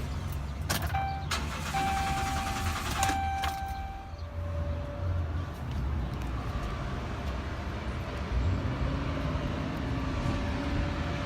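A motor vehicle's low steady rumble, with a few sharp clicks and short beep-like tones in the first few seconds.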